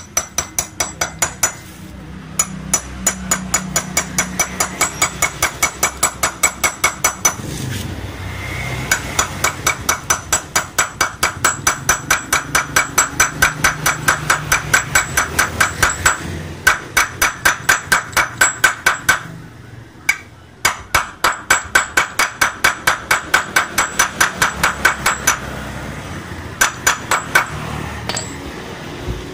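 Hammer striking metal in fast, even runs of several ringing blows a second, stopping briefly a few times before starting again.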